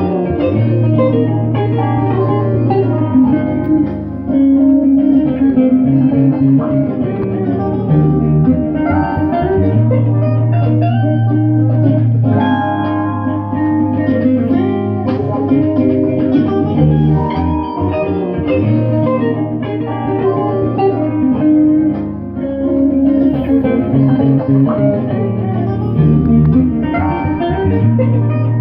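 Electric guitar music over a bass line, with long low bass notes in a repeating pattern.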